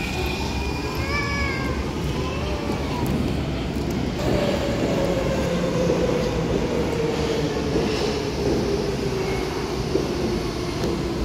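Munich U-Bahn C1 train pulling out, its electric traction drive whining in short rising-and-falling tones over a steady rumble of wheels on rail. From about four seconds in a second train runs in on the other track, its motor tone falling slowly and steadily as it slows.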